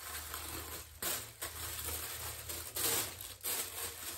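Thin tissue paper crinkling and rustling as a wrapped package is pulled open by hand, in irregular bursts with the loudest about three seconds in.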